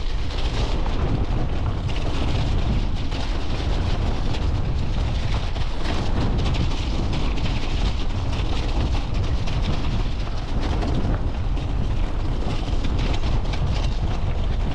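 Mountain bike ridden over rough trail: a steady rattle and clatter of the bike and tyres over the ground, under heavy wind buffeting on the action camera's microphone.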